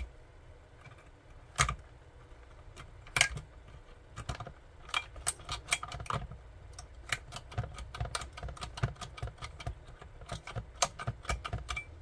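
Small metal cutting nippers clicking and snipping at plastic and a power cable's insulation, in an irregular run of sharp clicks. Two louder snaps come in the first few seconds, and quicker, lighter clicks follow through the rest.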